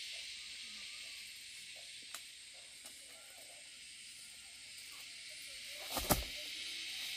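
Steady high hiss of insects in the countryside, with a few light clicks and a sharp double knock or snap about six seconds in.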